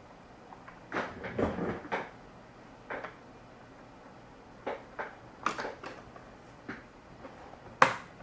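A series of small clicks and knocks as a RAM module is handled and slid into the memory slot of an iMac, with one sharp, loudest click near the end.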